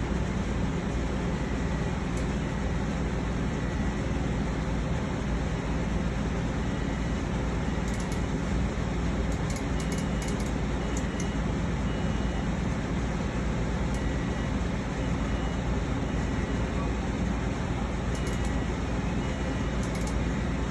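Steady machine running noise, a low hum under a broad hiss, with short faint beeps recurring every second or two and a few light clicks about halfway through and near the end.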